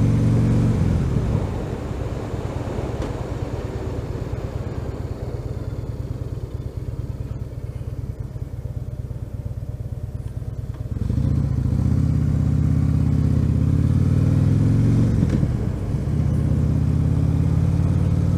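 Harley-Davidson Dyna Switchback's V-twin engine under way: it eases off about a second and a half in and runs quieter, then pulls strongly again about eleven seconds in, with a brief dip in the engine note near the end.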